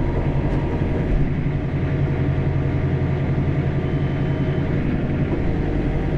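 John Deere 4066R compact tractor's diesel engine running steadily under the operator's hand as the grapple works a small log.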